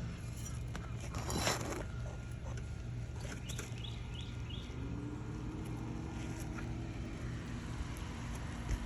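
Outdoor ambience: a steady low rumble, a brief rustle about a second and a half in, four quick high chirps a little after three seconds, and a faint steady hum in the second half.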